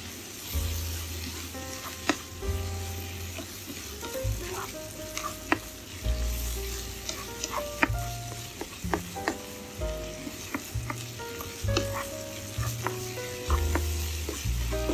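Tofu scramble sizzling in a hot nonstick frying pan while a spatula stirs and scrapes it, with frequent sharp clicks of the spatula against the pan. Soft background music plays underneath.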